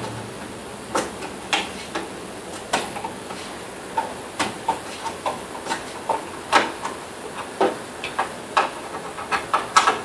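Hand screwdriver turning screws into the plastic console housing of a Gold's Gym 290c elliptical bike, giving irregular clicks and creaks of plastic, one or two a second.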